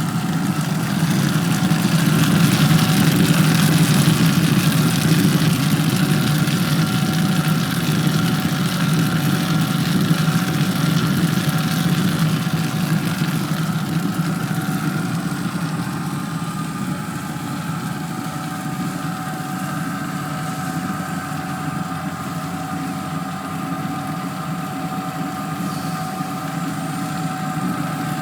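Chocolate melanger stone grinder running: a steady motor hum with the granite stones rolling in the drum, slightly louder in the first half.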